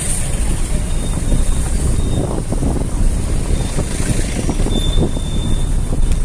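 Street traffic under a steady low wind rumble on the microphone: motorcycles and cars moving over cobblestones.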